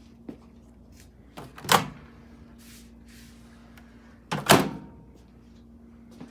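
Two loud clunks from a Galanz microwave's pull-handle door, a couple of seconds apart, each led by a small latch click, as the door is pulled open and pushed shut. A low steady hum runs underneath.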